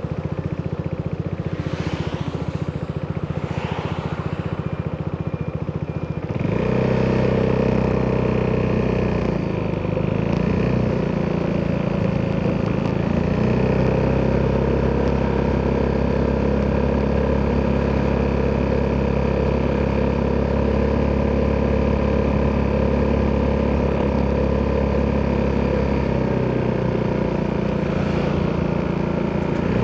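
Italjet Dragster 200 scooter's single-cylinder four-stroke DOHC engine through an Akrapovic exhaust. It runs low at first, opens up about six seconds in to a louder, steady note held at nearly even pitch, and eases back a few seconds before the end.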